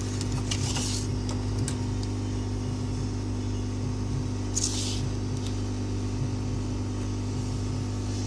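Hot-air rework station blowing steadily while it heats the phone board to melt the USB connector's solder, a constant hum. Two brief hissing sounds come over it, one about half a second in and one near five seconds.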